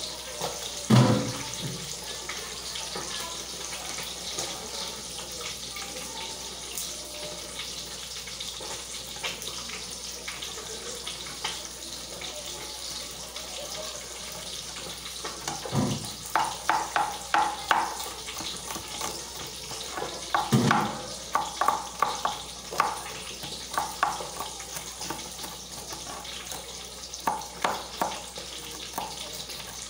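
Kitchen knife chopping garlic on a cutting board: quick runs of sharp taps through the second half, with a few dull thumps, over a steady hiss.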